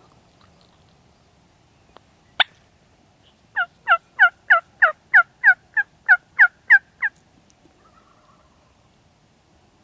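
A sharp click, then a run of about a dozen evenly spaced turkey yelps, about three a second, each note falling in pitch: a hen turkey's yelping sequence.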